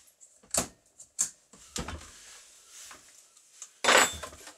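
A combination wrench working the bar nuts of a Husqvarna 365 chainsaw: three light metal clicks in the first two seconds. Near the end comes a much louder clatter as the wrench is put down on the workbench.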